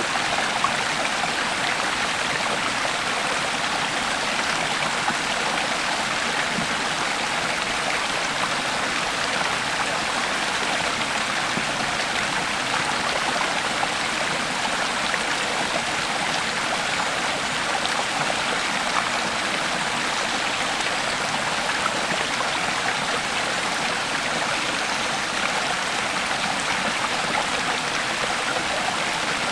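Creek water flowing over stones, a steady rushing and babbling with small splashes scattered throughout.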